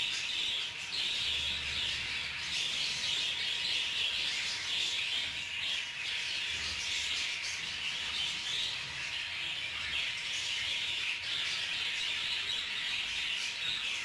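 Budgerigars chirping and chattering without a break, a dense mass of overlapping high calls.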